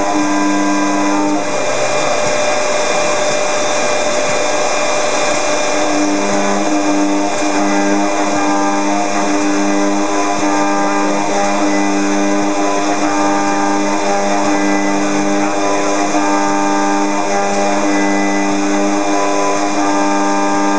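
Robot-held FIMEC milling spindle cutting aluminium: a steady, loud whine over dense cutting noise. The lower tones drop away for a few seconds near the start and then come back, as the cut changes.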